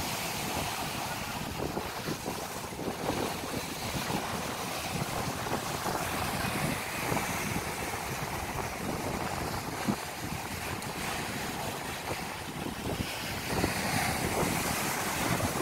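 Rough sea surging and breaking in white surf over the concrete blocks of a seawall, with wind gusting on the microphone.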